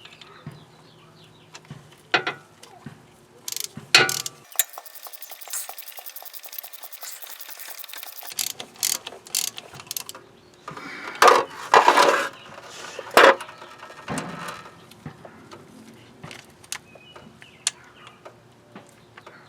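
Hand ratchet wrench clicking in a fast, even run as a bolt is turned, among scattered metallic clinks and tool knocks. A few loud clanks come about eleven to thirteen seconds in.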